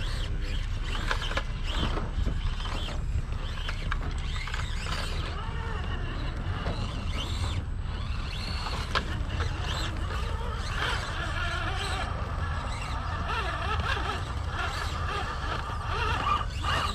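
Small 1/24-scale RC rock crawler (Axial SCX24) with its electric motor and gears whining as it crawls up rock, over a steady low rumble.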